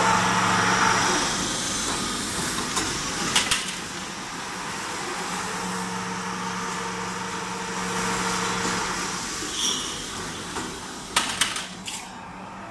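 Aluminium tube roll-forming machine running with its electric motor, a steady hum under an even mechanical noise as strip is rolled into kettle-handle tube. A few sharp clicks come about three and a half seconds in and again near the end.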